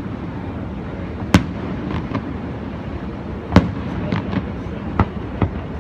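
Aerial fireworks shells bursting: two loud sharp bangs, about a second and a half in and about three and a half seconds in, with several smaller bangs between and after them, over steady background noise.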